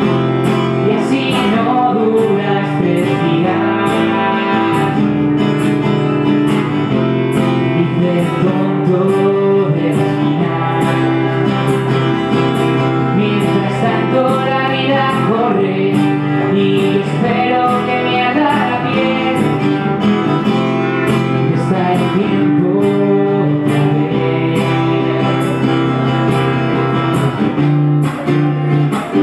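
Acoustic guitar played live, strummed in a steady rhythm.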